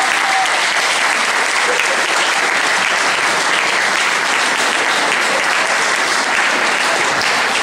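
A roomful of people clapping in steady applause.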